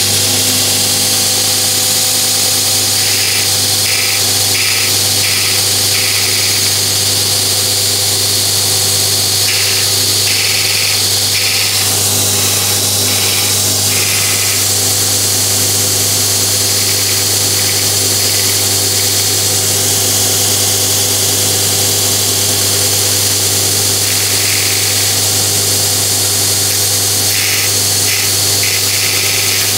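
Belt grinder with an 80-grit belt running steadily while a steel twist drill bit is sharpened on it: the motor hums throughout, and a short rasping grind comes each time the bit touches the belt, in quick runs of touches a few seconds apart.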